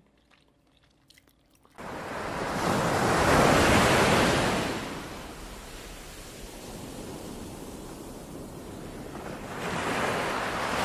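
Near quiet with a few faint clicks, then ocean surf sets in suddenly about two seconds in: a wave swells and breaks, ebbs into a steady wash, and a second wave swells near the end.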